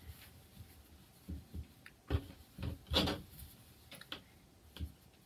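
Hands handling thick merino wool roving on a tabletop: soft rubbing and brushing, several short strokes, the loudest about three seconds in.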